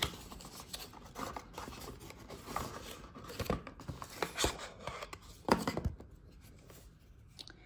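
Cardboard of an advent calendar door and its small box being pried open and handled, with rustling, scraping and a few light knocks; the loudest knock comes about five and a half seconds in.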